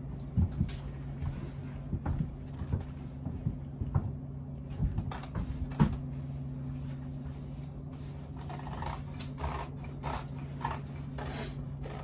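A large roll of heavy canvas being unrolled and handled: rustling with scattered knocks and taps, most of them in the first half, over a steady low hum.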